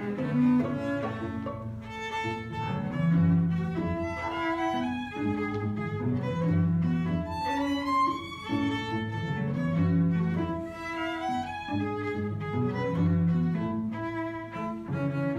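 Bowed string ensemble playing a piece in several parts: a violin melody over a moving cello line, with notes changing continuously.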